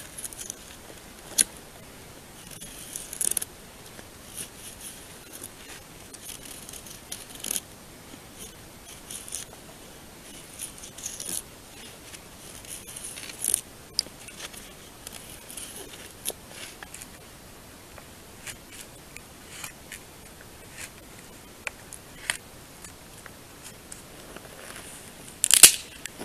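A Mora knife blade shaving a long wooden stick in short, irregular scraping strokes, with a louder burst of scraping or rustling near the end.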